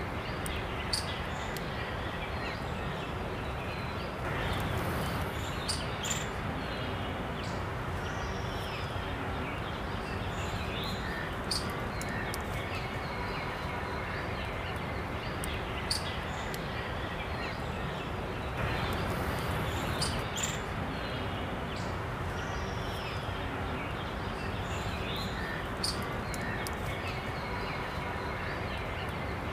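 Outdoor nature ambience: a steady background hiss with scattered bird chirps and sharp little clicks, swelling louder for a second or two twice.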